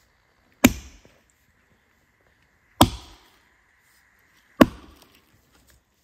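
Axe chopping wood: three hard strikes about two seconds apart, each a sharp crack with a short ringing tail.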